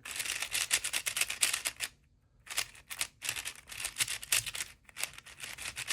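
Plastic 4x4 speed cube being turned fast while running parity algorithms: rapid clicking and clacking of the layers, with a brief pause about two seconds in.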